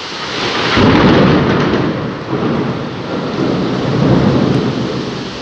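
Heavy rain falling steadily, with deep rumbles that swell about a second in and again around four seconds.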